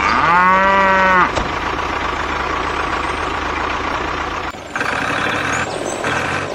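Vehicle engine sound running steadily, opened in the first second by a long pitched call that bends slightly up and down.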